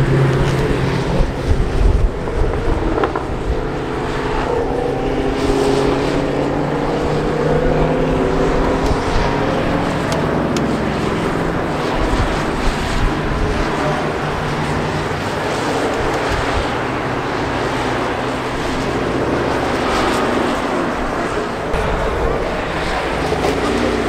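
Ford Mustangs and other muscle cars driving past on a race circuit, their engines running one after another, with the engine pitch sliding up and down as each car goes by.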